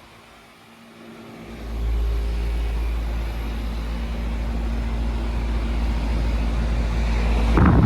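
Residential heat pump outdoor unit running in cooling mode: a steady low hum with a steady tone from the compressor and fan, rising in about a second and a half in. A brief loud noise near the end.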